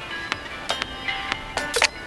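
Background music with pitched instrument notes and regular sharp percussion hits.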